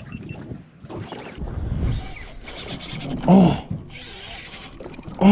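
Wind on the microphone and water noise around a small boat at sea. About three seconds in there is a short shout from a person, and another comes right at the end.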